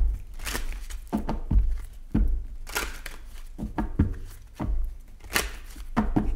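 A deck of tarot cards being shuffled in the hands: repeated short swishes of cards sliding against each other and sharp clicks of card edges, with a few dull thumps.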